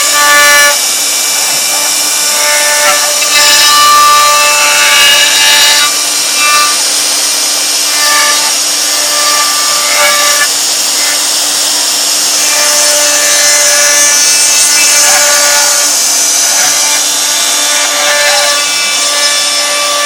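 CNC router milling wood: a continuous cutting hiss over a steady spindle whine. A higher set of tones fades in and out every few seconds as the bit moves through the wood.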